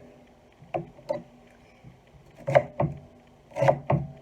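A kitchen knife cutting through food and striking a cutting board: about six sharp knocks, mostly in pairs.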